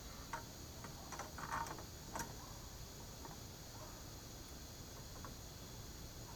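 Light metallic clicks and taps of a hand wrench and pliers working a nut on the cart's threaded steel axle: a quick cluster in the first two seconds, then a few scattered clicks.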